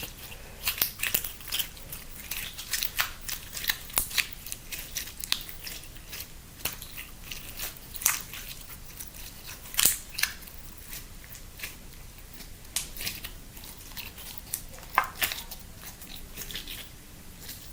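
Slime being mixed and kneaded by hand, giving off irregular sticky crackles and clicks, with a couple of louder ones about ten and fifteen seconds in.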